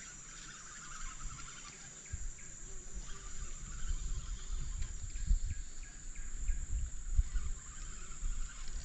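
Insects droning steadily in one high-pitched tone, with irregular low thumps and rumbling that grow louder from about two seconds in.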